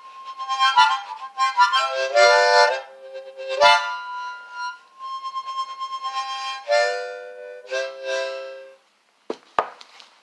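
Harmonica played solo, cupped in both hands, in phrases of chords and held notes that stop about 9 s in. A few sharp knocks follow near the end.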